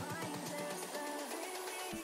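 Background music led by guitar, with a low beat that fades out early on.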